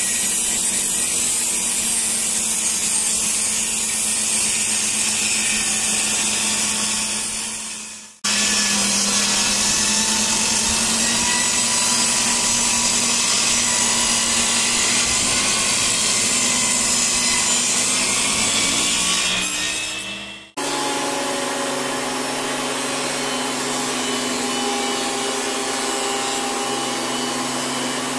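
Makita MLT100 table saw running and ripping wood, the blade cutting steadily through the stock. The sound fades out and restarts abruptly twice, about 8 and 20 seconds in; after the second break it is a portable thickness planer running, with steadier low tones.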